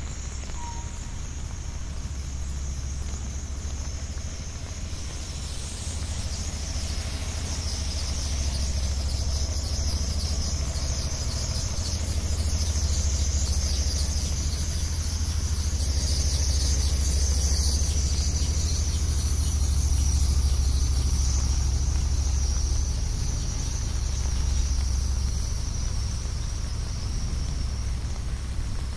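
Rainy city street ambience: a low rumble of traffic that swells toward the middle and eases near the end, over a steady high hiss of rain and wet road.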